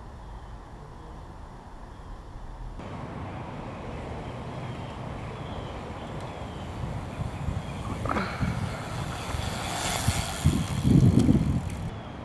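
A motor vehicle going past close by, getting louder to a peak around ten to eleven seconds in.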